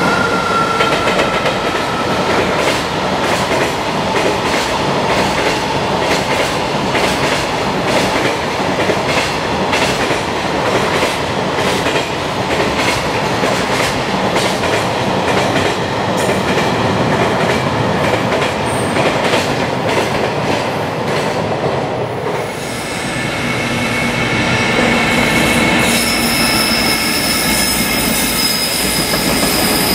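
Long freight train of container wagons running past on slab track, its wheels clacking over the rail joints in a quick, irregular run of clicks. About two-thirds through, the sound changes to another freight train coming through with a steady high-pitched squeal over the rumble.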